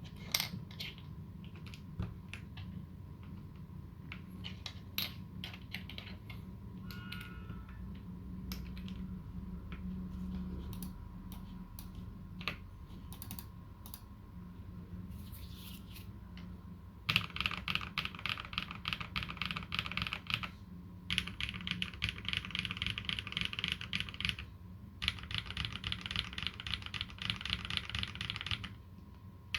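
Dolinger RE 2020 custom mechanical keyboard with lubed Holy Panda tactile switches being typed on. There are scattered single keystrokes at first, then fast continuous typing from a little past halfway, broken by two brief pauses.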